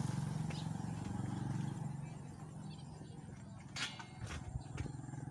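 A small engine running with a low, pulsing hum that fades over the first two seconds, then a few sharp clicks or knocks about four seconds in.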